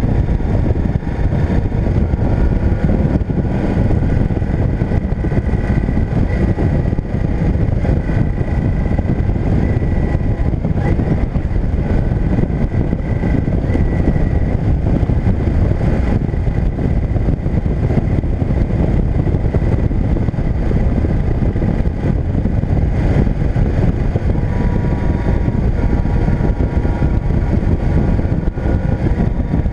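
Motorcycle engine running at a steady cruise on the move, with a dense low rumble of wind and road noise. Its level and pitch barely change.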